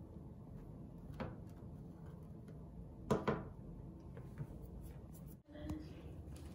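Light taps of a hand-held wire-mesh strainer being shaken to sift powdered sugar over pizzelles: one tap about a second in and a quick pair about three seconds in, over a low room hum.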